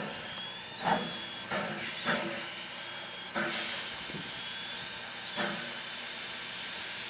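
Steam hissing steadily from around the cylinders of the WW class steam tank locomotive, with a few short metallic clanks and brief high-pitched squeals about a second in and again near five seconds.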